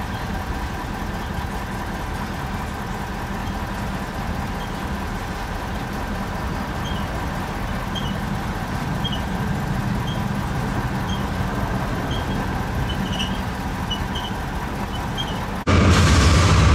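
Steady engine hum and low rumble of idling Norfolk Southern diesel locomotives in a rail yard, with a faint high chirp repeating about once a second over the second half. About a second before the end the sound jumps to the much louder rumble of a Norfolk Southern GE diesel locomotive leading a train.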